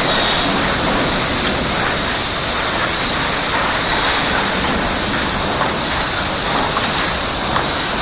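Loud, steady din of a sawmill board line running, its conveyors and rollers carrying sawn boards. It is an even noise with no distinct knocks or strokes and a steady high hiss on top.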